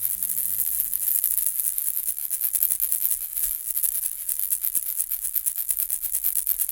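Baby rattle ball, a toy with small pellets inside, shaken in quick, even strokes: a dense, high-pitched rattle that grows sharper and more distinct about two seconds in.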